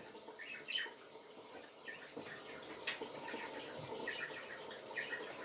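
Faint dripping and trickling water at a kitchen sink, with a few light taps.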